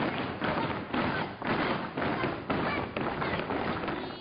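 Regular thuds, about two a second, from children exercising on a boxing ring's padded floor, over the hubbub of a large gym.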